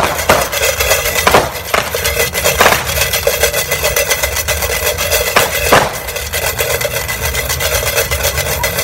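New Year's firecrackers and fireworks going off all around: a dense, constant crackle with several sharp, louder bangs, over a steady low rumble.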